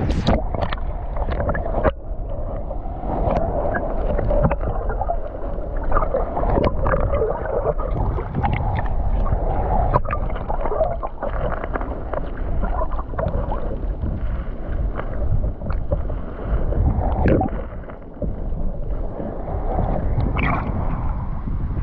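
Muffled rushing and gurgling of water around a snorkeler's camera, with scattered knocks and taps. It is dull, with little above the mid-range.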